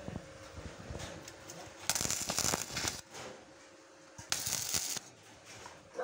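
MIG welding arc from an ANDELI NBC-250 welder crackling on rusty steel bar in two short bursts, each about a second long: the first about two seconds in, the second past four seconds.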